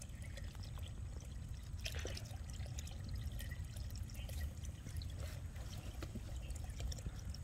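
Water pouring and trickling steadily as it flows through a fish-catching net, with a brief louder splash about two seconds in.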